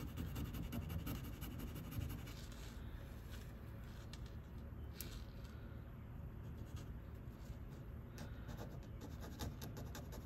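A metal jewelry chain being scratched and rubbed against a testing surface to expose fresh metal for an acid silver test: a run of quick, light scratching strokes.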